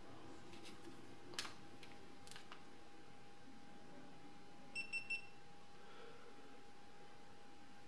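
Three short, high electronic beeps from a GoPro Hero 3 action camera just after its front button is pressed, about five seconds in: the camera's power-on signal. Before them come two sharp plastic clicks from the camera being handled in its clear housing, over a faint steady hum.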